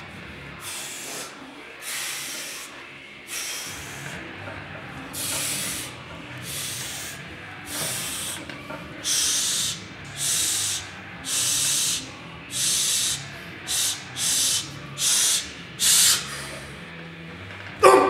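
A lifter's sharp hissing breaths through the teeth, psyching up under a heavy bench-press bar: one about every second at first, coming faster toward the end.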